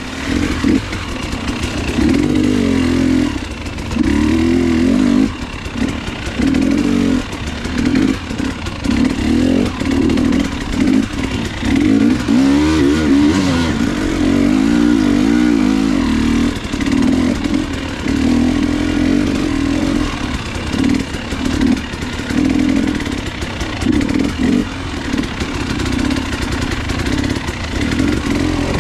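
Motorcycle engine running under load, revving up and down over and over, its pitch rising and falling every second or two.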